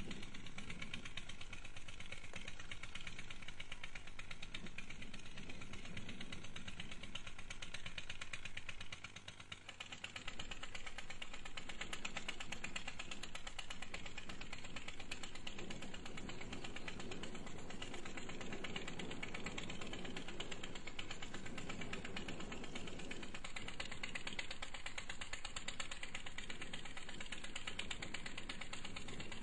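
A steady mechanical running noise with a fast, even ticking rattle, like a small motor running. It drops briefly about nine seconds in, then carries on.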